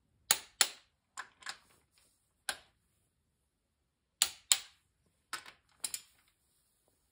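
Click-type torque wrench clicking as ARP rod bolts on a 440 Mopar V8's connecting rods reach 50 ft-lbs: a series of sharp clicks, several in quick pairs, with short pauses between.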